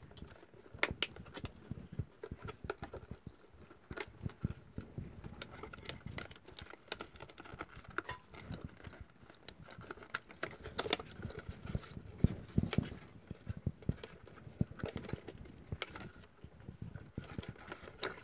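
Irregular light clicks and taps of a thin, cut-down plastic PET bottle being handled as an orchid's roots are pushed into it.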